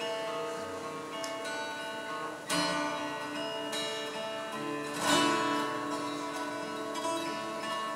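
Acoustic guitar played solo: chords picked and ringing out, with two strong strummed chords about two and a half and five seconds in.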